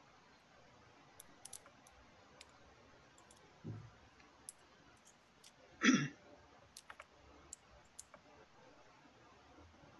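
Computer mouse clicking a dozen or so times at irregular intervals. A short low thump comes a little before the middle, and a brief vocal sound from a person, the loudest moment, about six seconds in.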